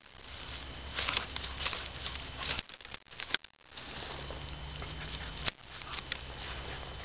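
Wire-haired dachshund digging and tearing at roots and twigs in a burrow entrance: irregular scratching, rustling and crackling of dry leaves, twigs and soil, breaking off briefly about halfway through.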